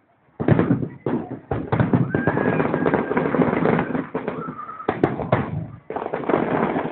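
Aerial fireworks going off in a rapid, almost continuous string of bangs and crackles. The sound starts after a brief silence and has short lulls about one and a half and five seconds in.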